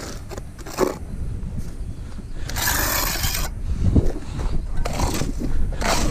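Shovel and steel trowel scraping wet cement mortar across the tops of concrete foundation blocks, in short scrapes and knocks, with one longer, louder scrape about three seconds in.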